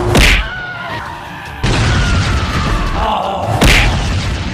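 Action sound effects: two heavy booming impacts, about three and a half seconds apart, over background music.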